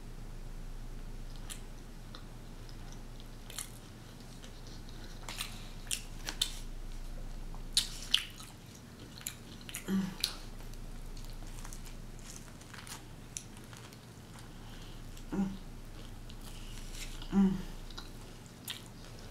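Close-up chewing and biting of a bacon cheeseburger with a fried onion ring: wet mouth smacks and sharp clicks scattered throughout, with three short low hums about ten, fifteen and seventeen seconds in.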